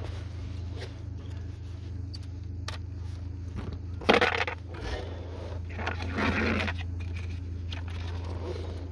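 Metal hand tools being handled and set down: a sharp metallic clatter about four seconds in and a longer scrape around six seconds, over a steady low hum.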